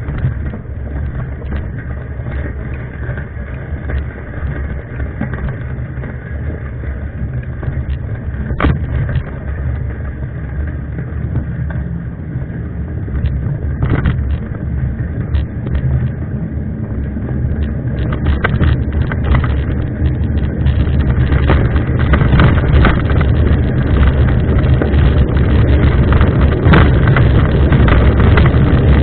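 Mountain bike ridden over a trail: a steady rumble of wind on the microphone with rattling and knocks from the bike. Both grow louder and the knocks come thicker about two-thirds of the way through.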